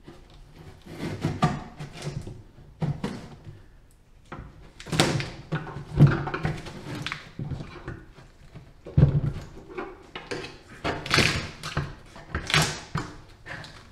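Halves of a fiberglass form being pried apart along their bolted flange seam: an uneven run of knocks, thumps and scraping as the joint works loose, with the heaviest thumps about six and nine seconds in.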